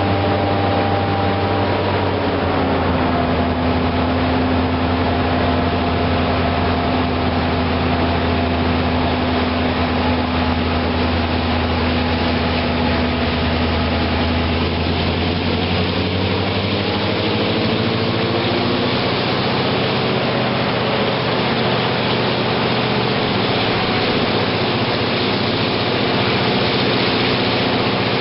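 HŽ class 2062 diesel locomotive's engine working hard under load, heard from the coach behind over steady wheel and rail noise. Its note drops a little about two seconds in. Around fifteen to nineteen seconds in it rises as the engine picks up revs, then holds at the higher pitch.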